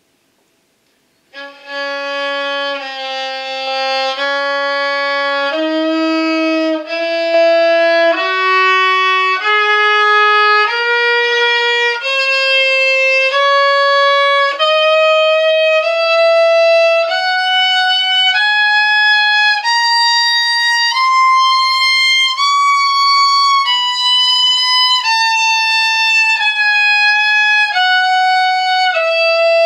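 Solo violin playing a slow two-octave C-sharp minor scale in long, separate bowed notes, about one note a second. It starts about a second and a half in, climbs step by step to the top C-sharp about three quarters of the way through, then comes back down.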